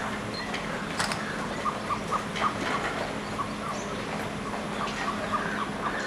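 Ostrich chicks peeping: two quick runs of short calls, one a couple of seconds in and another near the end, with a few scattered clicks and a faint steady hum underneath.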